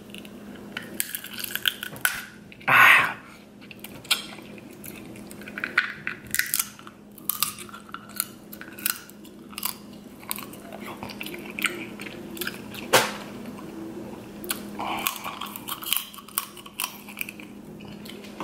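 Close-up eating sounds of king crab legs: teeth biting and cracking the hard shell, with repeated sharp clicks and crunches, wet chewing in between. The loudest sounds are a short burst about 3 seconds in and a sharp crack about 13 seconds in.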